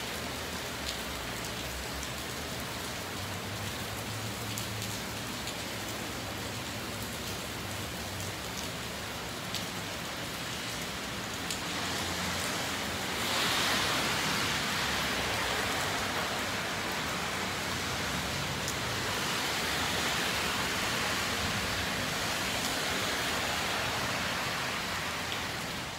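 Steady rain falling on pavement and street, a continuous hiss that grows louder about halfway through.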